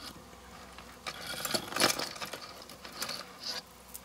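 Metal chain necklaces clinking and jangling as they are picked up and handled, in a few irregular clusters of small metallic clicks.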